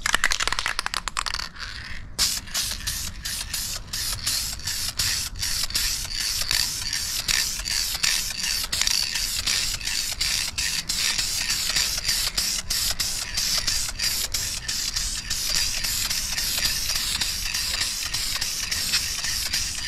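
Aerosol can of Dupli-Color vinyl and fabric spray paint hissing in many short, repeated passes as a coat is laid onto a vinyl car console. About the first two seconds hold a fine rattling, typical of the can's mixing ball being shaken.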